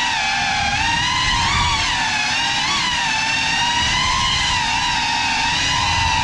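Motors and propellers of a Cinelog 35 cinewhoop drone whining in flight, the pitch wavering slightly as the throttle shifts, over a low rushing noise.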